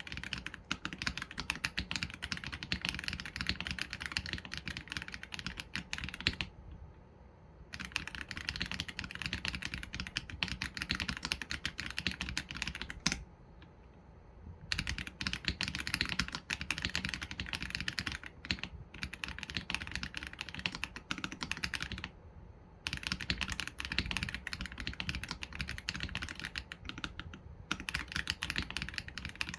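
Continuous typing on an AULA F87 Pro mechanical keyboard with Leobog Graywood V3 linear switches and PBT keycaps: rapid key strokes in long runs, broken by three short pauses of about a second.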